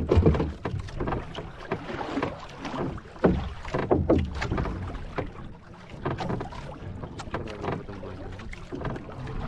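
Water slapping against a small boat's hull at sea, with wind on the microphone and irregular knocks and splashes.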